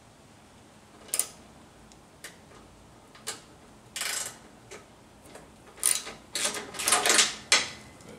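Socket ratchet wrench on an extension clicking in short strokes, with metal clinks, as a nut and screw are loosened. Scattered clicks start about a second in; the busiest, loudest run of clicking comes near the end.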